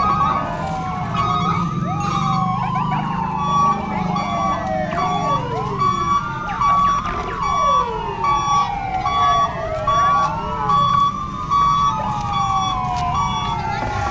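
Electronic siren sounds: several wailing tones sliding downward over and over, crossing one another, over a beeping tone that pulses about twice a second.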